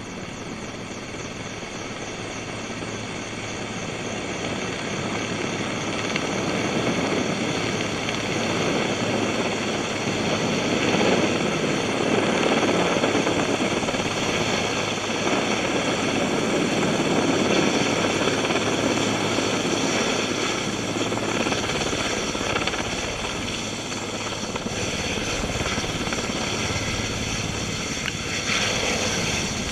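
Helicopter hovering low overhead with its bucket on a long line dipping from a fire-retardant dip tank, the rotor and engine running steadily. It grows louder over the first several seconds as it comes in, then holds loud with slow swells.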